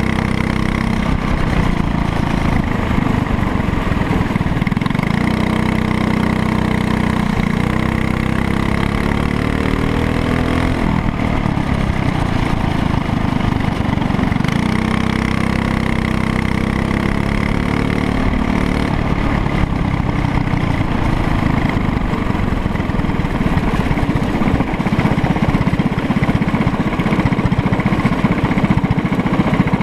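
Racing kart engine heard close up from on board the kart, running hard on track, revving up twice as it accelerates out of corners and dropping back between.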